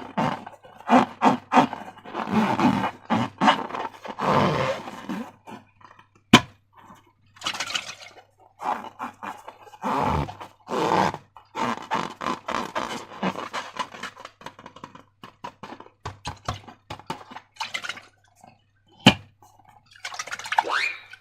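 Slime being squished and stretched by hand: irregular wet squelches in quick bursts, with a sharp snap about six seconds in and another near the end.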